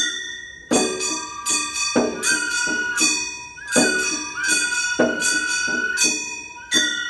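Gion bayashi float music: small hand-struck bronze gongs (kane) clang about twice a second in a repeating pattern, ringing on between strokes. Over them a bamboo flute holds long notes that bend now and then.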